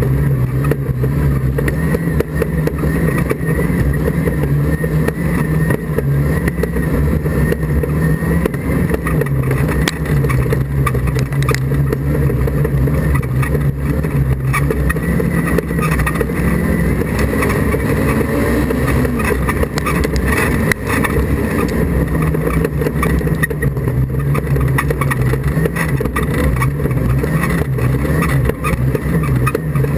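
Class 4 autograss racing car's engine heard from inside the cabin while it is raced, its pitch rising and falling over and over with the throttle. Short knocks and rattles from the car run through it.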